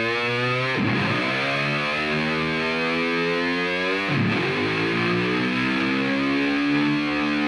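Hard rock music: a distorted electric guitar whose pitch dives sharply and then climbs slowly, twice.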